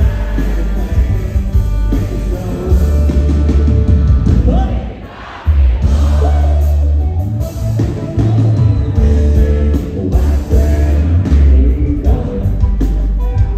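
Live country band with a male lead singer performing on a concert PA, heard from the audience, with heavy bass. The band drops back briefly about five seconds in, then comes back in full.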